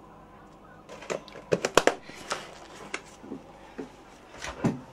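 Kitchen clatter of a knife and butter tub being handled over a stainless steel mixing bowl: a quick run of sharp clicks and knocks starting about a second in, then a couple more near the end.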